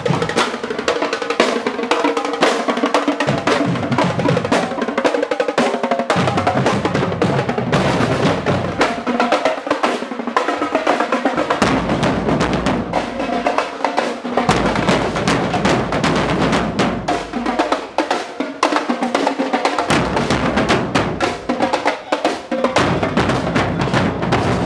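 Marching drumline of snare and bass drums playing a street cadence, with the bass drums dropping out and coming back in every few seconds.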